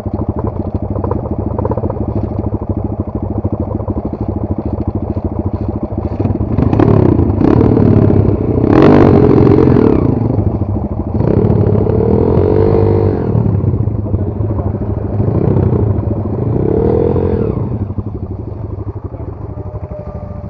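Enduro motorcycle engine ticking over, then revved hard in several surges, rising and falling in pitch, for about twelve seconds, before settling back to a steady lower note.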